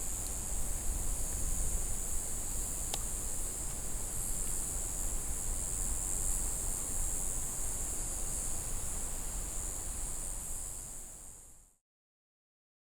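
Strong wind buffeting the microphone in a gusting low rumble, with a steady high-pitched hiss above it and one faint click about three seconds in; it fades out near the end.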